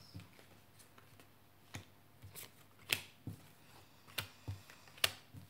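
Fortune-telling cards being dealt one by one onto a felt-covered table: a series of short, light taps and slaps as each card is put down, about seven in all, the sharpest about three seconds in and near the end.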